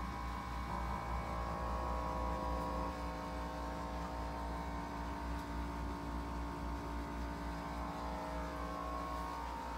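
Steady low hum with several steady tones above it, unchanging throughout.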